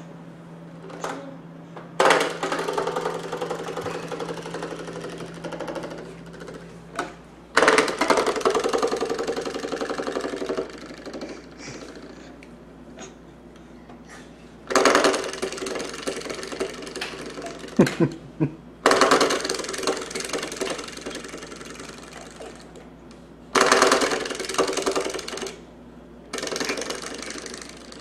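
Coiled-spring door stopper being flicked again and again: each flick sets off a buzzing, rattling twang that starts sharply and dies away over a second or three, about six times.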